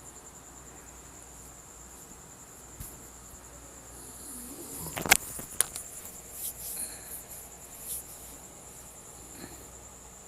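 Battered chicken breast strips deep-frying in oil, sizzling and crackling, louder from about four seconds in, with two sharp clicks around five seconds in. A steady high-pitched trill runs underneath.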